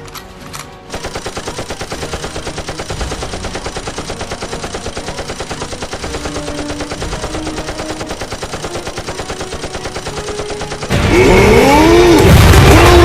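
Sustained rapid automatic gunfire at an even rate, starting about a second in. Near the end a much louder wall of noise cuts in, with sweeping pitch glides and then steady tones.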